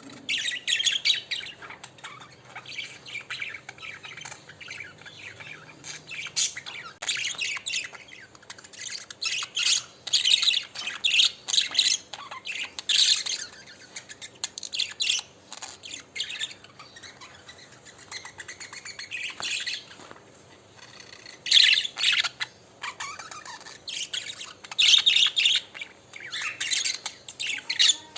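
A group of budgerigars chattering: busy, overlapping chirps and warbles with occasional harsher squawks, coming in louder flurries every few seconds.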